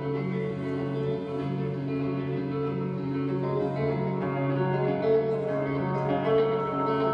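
Slow experimental guitar music: sustained, ringing notes repeating over a steady low drone.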